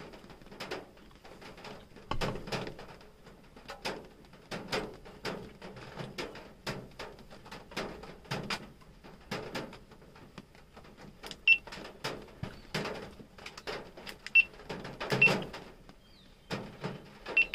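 Irregular sharp clicks and taps, about one or two a second, over a faint steady hiss, with a few short high electronic beeps in the second half and a quick run of beeps at the very end.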